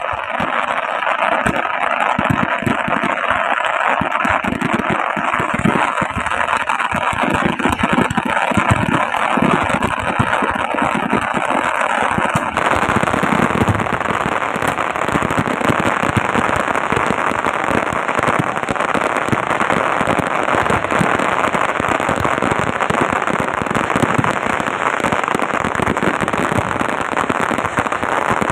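Chakri ground-spinner fireworks fizzing and crackling steadily. About twelve seconds in, the sound changes abruptly and becomes brighter and hissier.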